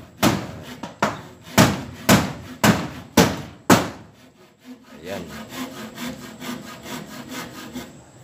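Hand saw cutting through a wooden board: strong, even strokes about two a second, then from about five seconds in lighter, quicker strokes.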